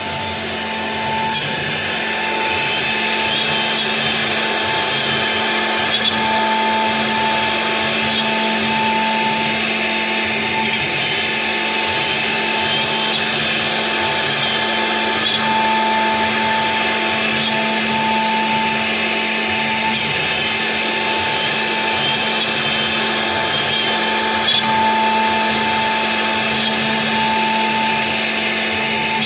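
CNC router spindle running steadily as the machine carves, a constant whine of two held tones over the noise of cutting, with a few faint ticks.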